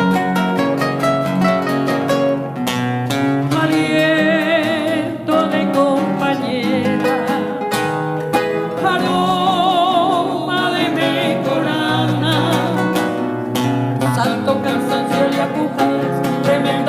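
Acoustic string-trio music: plucked guitars playing an instrumental passage of quick runs over chords, with a wavering sustained melody line over part of it.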